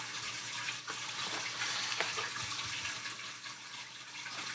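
A knife blade cutting through a sheet of gasket material: a few faint scrapes and ticks over a steady hiss.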